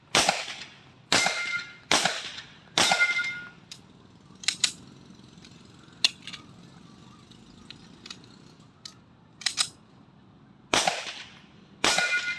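A 9mm pistol firing single shots, four in quick succession, a pause, then two more near the end, each shot followed by a ringing tail. Quieter sharp cracks come in between.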